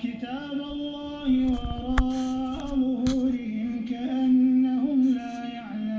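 A man's voice chanting Quran recitation in the slow melodic style of a prayer imam, holding long drawn-out notes that bend up and down in pitch. Two sharp knocks cut across it, about two and three seconds in.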